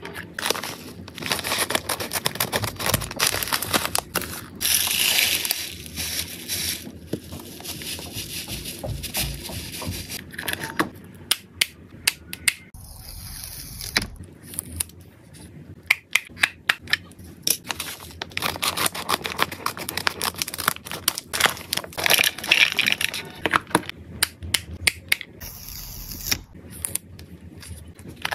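Close-up packing sounds: paper sheets crinkling and tearing, with many sharp clicks and taps from small plastic storage boxes and their snap-clip latches.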